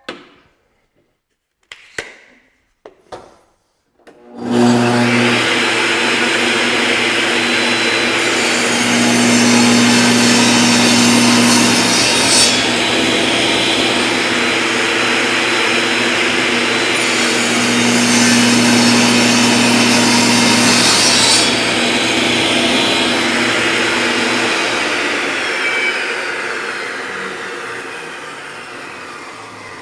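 Table saw motor switching on and running, with the blade cutting into a wooden 1x4 board twice for about 4 s each, around 8 s and 18 s in. These are the two 3/8-inch-deep shoulder kerfs of a dado, one cut from each edge. The motor then winds down slowly over the last several seconds.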